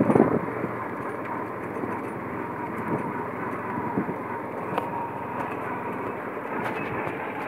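Motorcycle running at riding speed with tyre and road noise from a dirt track, steady throughout, with a brief louder thump at the very start.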